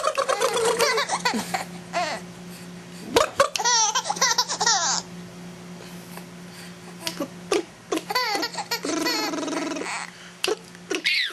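Six-month-old baby laughing in several bursts of high, bouncing squeals, with a faint steady hum underneath.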